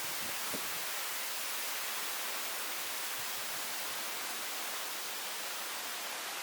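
Steady rushing of a waterfall pouring into a rock cave, an even hiss with no breaks or changes.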